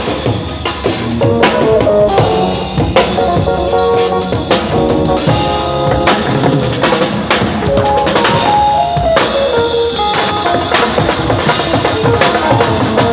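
A band playing loudly, led by a drum kit with kick drum, snare and cymbals, over sustained pitched notes from other instruments.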